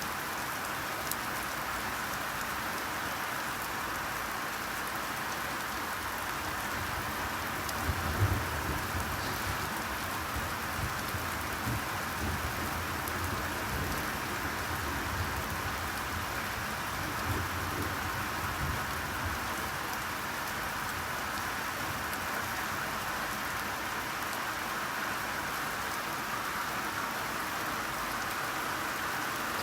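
Steady rainfall, an even hiss of drops on surfaces. From about eight seconds in, low rumbling comes and goes for roughly ten seconds.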